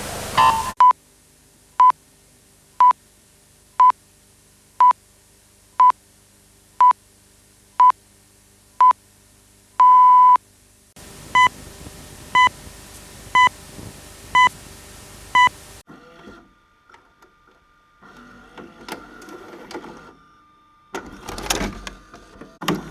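Vintage videocassette player sound effects: a run of short electronic beeps about once a second, closing with one longer beep, then a second run of five buzzier beeps over tape hiss. After that come faint mechanical whirring and clicks, and louder clunks near the end.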